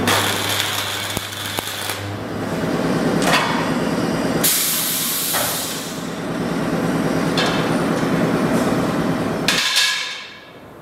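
Electric butt-welding machine joining the ends of a steel motorcycle wheel rim: several bursts of hissing, crackling sparks over a low electrical hum, with metallic knocks from the machine. The sound drops away sharply near the end.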